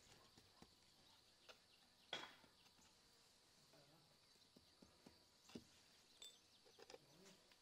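Near silence with faint scattered taps and clicks, the loudest about two seconds in: wooden toothpicks being pushed through pork fat into potato halves and set down on a wooden cutting board. A faint steady high hiss runs underneath.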